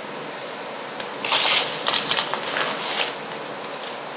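Paper rustling and crinkling as cards and papers are pulled out of a padded mailing envelope and handled, in several short bursts with small clicks, starting about a second in.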